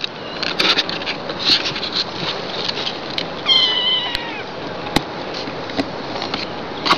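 A kitten mewing: one long, high mew about halfway through whose pitch drops at the end, over light rustling and a single sharp click.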